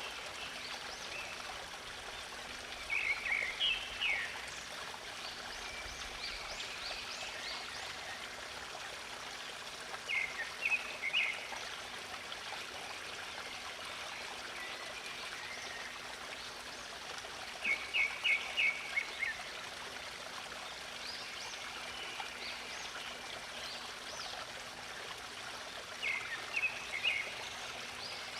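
A stream trickling steadily, with a bird calling a short run of quick chirps four times, about every seven or eight seconds, and fainter, higher chirps from other birds in between.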